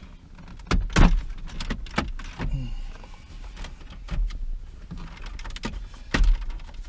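Irregular plastic clicks and knocks from handling the dash-mounted airbag switch and its wiring connectors during the swap, with dull bumps and one short creak.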